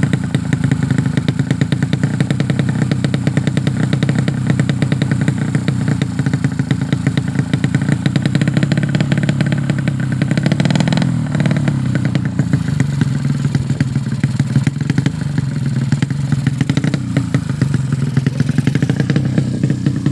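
A tuned 130cc drag-bike engine running steadily, with a brief rev about halfway through.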